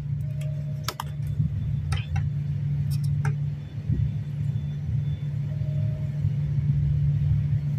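Steady low rumble with a few light clicks over it.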